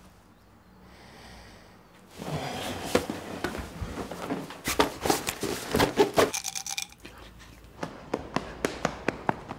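A busy stretch of rustling and knocks with a short steady tone, then, after a cut, running footsteps on a paved sidewalk, about two to three steps a second.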